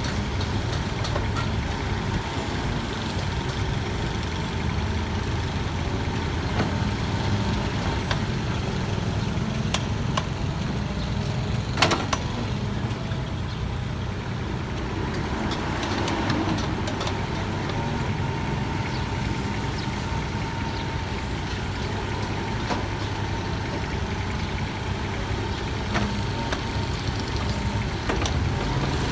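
Kubota excavator's diesel engine running steadily under work, with a single sharp knock about twelve seconds in.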